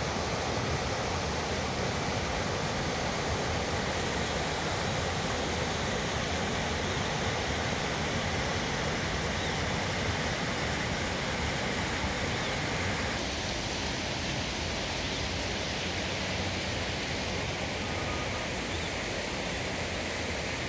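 Shallow mountain stream running over rocks and boulders: a steady rushing hiss of water that turns a little softer about two-thirds of the way in.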